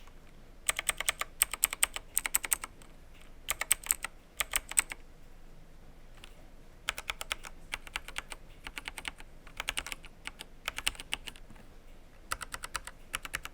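Logitech Pro X mechanical keyboard being typed on in short bursts of rapid key clicks, with brief pauses between them and a longer pause midway, as a typing sound test of its switches.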